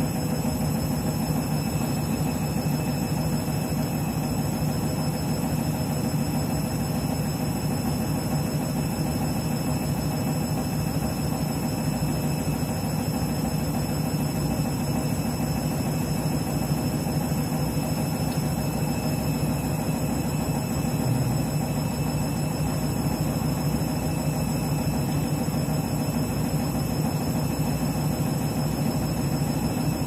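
Front-loading washing machine humming steadily and evenly while its drum stands still with water in it, typical of the drain pump running ahead of the spin.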